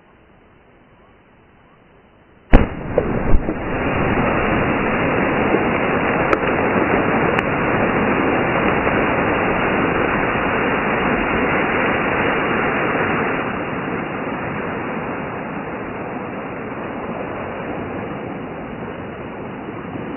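An explosive charge detonating underwater in a pond about two and a half seconds in: a single sharp boom with a smaller crack just after, then a long loud hiss of the thrown-up water raining back down onto the surface, easing somewhat in the last third.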